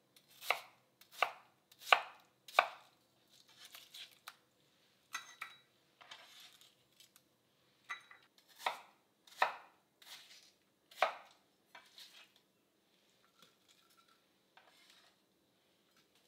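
Kitchen knife cutting watermelon against a cutting board: four sharp cuts in quick succession at the start, three more between about 8 and 11 seconds in, with softer knocks and scrapes between them and toward the end as the cubes are moved with the blade.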